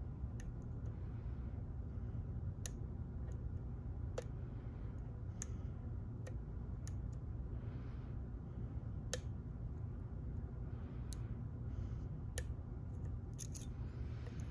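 Picking an ASSA Twin Exclusive 5700 lock: scattered sharp, light metallic clicks from the pick and tension wrench working the pins, over a steady low hum.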